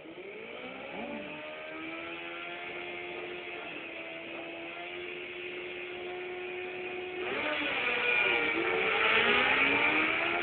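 Two sport motorcycles, a Honda CBR1000RR and a turbocharged Kawasaki ZX-6R, both inline-fours, revving on the drag strip start line and holding steady revs. About seven seconds in they launch, much louder, with the engine notes rising and dropping as they shift up through the gears.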